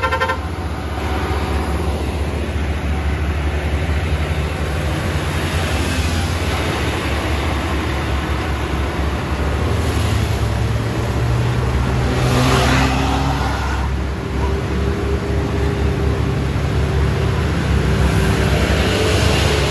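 Diesel engines of heavy trucks running steadily as they pull slowly past, among them a MAN tractor unit hauling a heavy crane on a low-loader. A horn toot cuts off right at the start.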